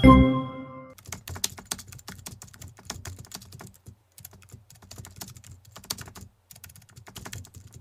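Computer keyboard typing, rapid irregular key clicks with short pauses, laid under text typing onto the screen. In the first second the last chime of an intro jingle rings out.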